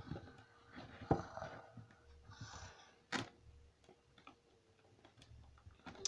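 Faint clicks and light knocks of parts being handled while the washing machine's agitator is held and worked on, with a sharper knock about a second in and another about three seconds in.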